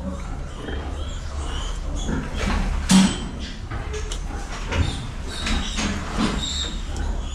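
A sow nursing a litter of piglets: short high piglet squeaks and low grunts over a steady low hum, with a louder thump about three seconds in.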